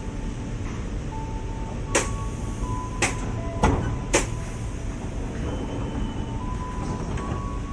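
Electric commuter train standing at the platform with its doors open: a steady low hum from the train, with a few faint steady tones. Four sharp knocks come between about two and four seconds in.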